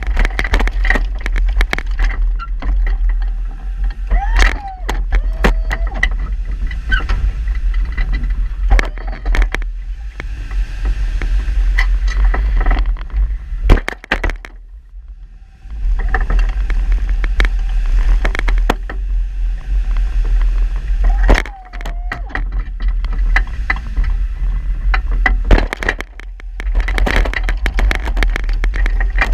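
A snowplow vehicle's engine running while its steel blade scrapes, clanks and rattles as it pushes snow along a driveway. The noise drops briefly about halfway through, and two short falling squeals sound about 4 seconds in and again about 21 seconds in.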